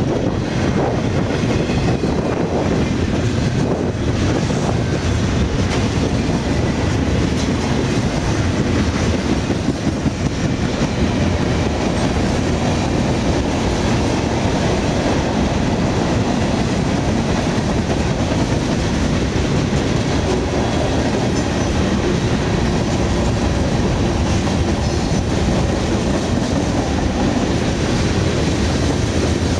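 Mixed freight train rolling past close by at speed: a steady rumble of steel wheels on the rails as double-stack container well cars and covered hopper cars go by.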